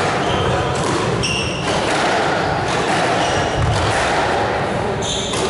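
Squash court sounds: court shoes squeak briefly on the wooden floor a few times, over a steady murmur from the spectators in the hall.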